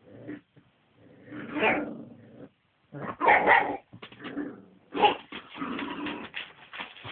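Pit bulls barking and yelping in three loud bursts, the last one the longest.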